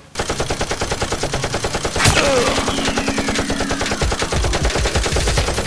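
Rapid automatic gunfire, an unbroken string of many shots a second, dubbed over a drum-fed Nerf blaster. A sharper crack comes about two seconds in, followed by a falling tone.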